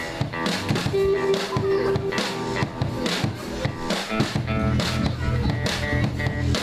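A rock band playing live: electric guitars over bass and drums, with regular drum and cymbal hits. About a second in, a guitar holds one note for about a second and a half.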